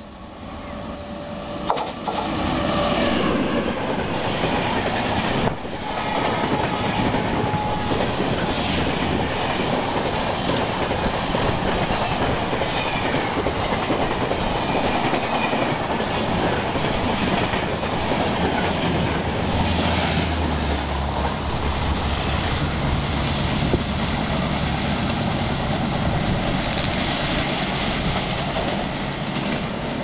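Express train behind a WAP-5 electric locomotive passing at high speed: loud, steady rush and clatter of wheels on the rails, building over the first few seconds as it arrives. Short blasts of the locomotive's horn sound in the first several seconds.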